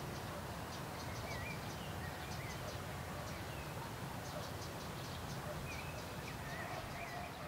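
Outdoor ambience: a steady low background rumble and hiss, with birds chirping and calling through it in short, repeated high notes and occasional wavering calls.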